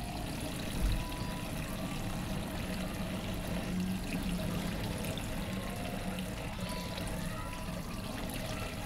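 Kitchen tap water pouring into a steel bowl of sliced bitter gourd as hands swish and rub the pieces to rinse off the salt. A low thump about a second in.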